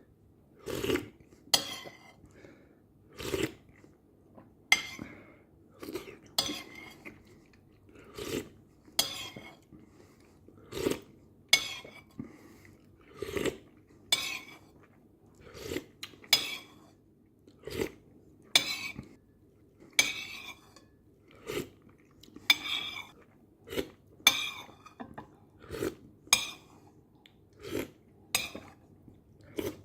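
Soup being slurped and sipped from a spoon or bowl, with noodle slurps: a string of short wet slurps, about one a second, with faint clinks of cutlery against the dish.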